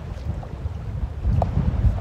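Wind buffeting the microphone, with lake water lapping against the boat; the wind gusts louder about one and a half seconds in.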